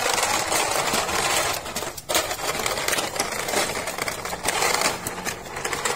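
Plastic wheels of a toy car-carrier truck rolling and grinding over gritty concrete as it is pushed along, with a continuous rattle of the die-cast cars in its case and a short break about two seconds in.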